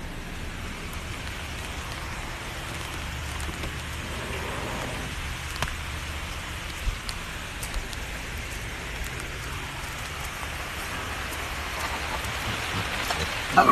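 Steady rain falling outdoors: a continuous even hiss, with a few faint sharp ticks about halfway through.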